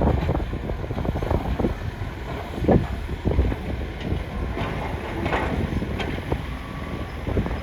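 Excavator at work: a steady low rumble with irregular knocks and clatters throughout, and wind buffeting the microphone.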